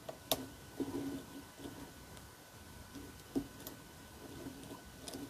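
Faint metallic ticks and light taps of a pick and tension tool working the pins inside a Mul-T-Lock Classic camlock, with a sharp click about a third of a second in and a couple more around three and a half seconds.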